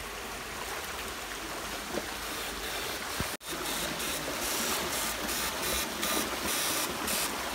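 Stream water rushing over rocks in a small cascade, a steady hiss. A brief cut just after three seconds in; after it the rush is louder and swells repeatedly.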